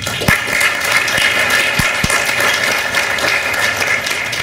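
Audience applauding, a steady dense clapping. A few dull low thumps stand out in the first two seconds.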